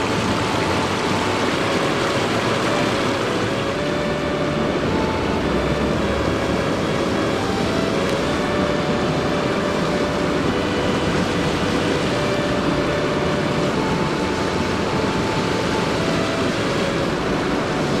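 Steady rushing of the Tama River's mountain-stream water, an even, unbroken roar.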